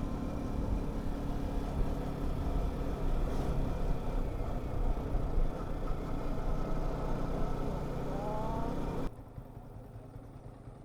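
Motorcycle engine running steadily, with a low rumble. About nine seconds in it cuts off abruptly, leaving a quieter background.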